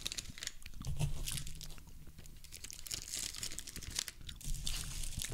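Plastic candy packaging crinkling and crackling in rapid irregular bursts as the bag is handled and folded.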